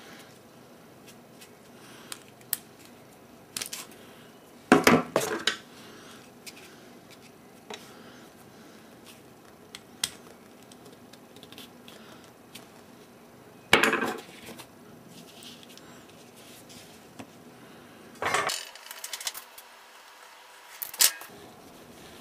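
Small-parts handling while fitting a resistor into a printed circuit board: metal tweezers, component leads and the board clinking and tapping on the work surface. It comes as a few short bursts of clatter with small clicks in between.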